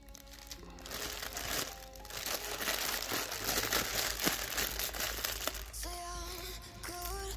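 Background music: a noisy, hissy stretch, then a stepping melody comes in about six seconds in.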